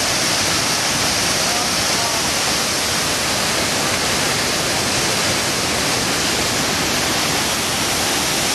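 Niagara Falls: a steady, loud rush of falling water with no breaks.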